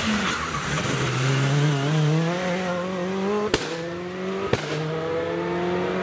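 Rally car engine accelerating hard out of a hairpin, its note climbing in pitch, with two sharp cracks about a second apart midway before it pulls away again.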